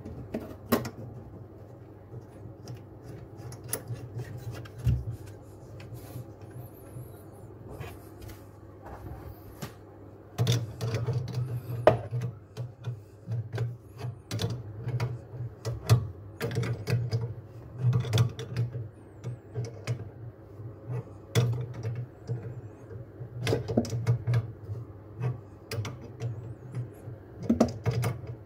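Adjustable spanner clicking and knocking against the metal compression nut and valve as a braided flexible tap hose is tightened onto an isolation valve. Scattered clicks at first, then a run of quicker, louder clicks and scrapes from about a third of the way in.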